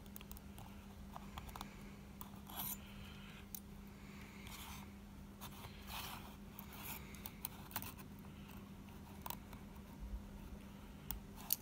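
Faint, scattered small clicks and short scrapes of metal tools and wire as a fused Clapton coil is fitted into the posts of a rebuildable vape atomizer deck, over a low steady hum.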